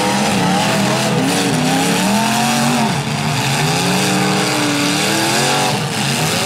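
Several demolition derby cars' engines revving up and down together as the cars maneuver and spin their tires in the dirt, with the pitch rising and falling throughout.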